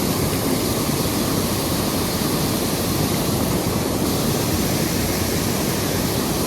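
Mountain stream water rushing over rocks: a loud, steady, even rush with no change.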